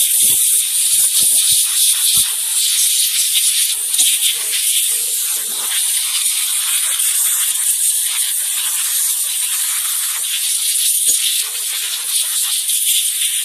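Compressed air hissing steadily from an air-compressor duster nozzle as it blows dust out of an opened laptop's fan and insides. The hiss flutters as the nozzle is moved, with a few light knocks from handling, and cuts off abruptly at the end.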